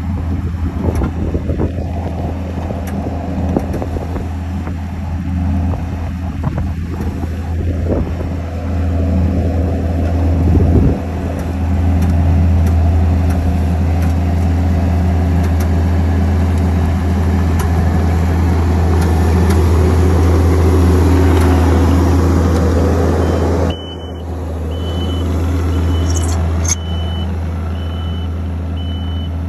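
Diesel engine of a Kubota compact track loader running steadily with a low drone while it pushes dirt with a grading blade. After a sudden cut near the end, a backup alarm beeps at an even pace.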